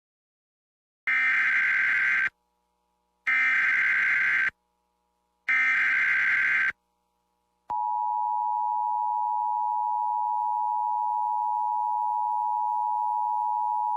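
Emergency Alert System SAME header: three short bursts of screeching digital data tones, each a little over a second long and about two seconds apart. Then, about eight seconds in, the steady, harsh two-tone EAS attention signal starts and holds. Together they announce the start of a new alert.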